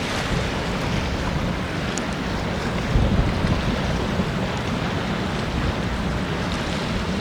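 Strong wind rumbling across the microphone, with a heavier gust about three seconds in.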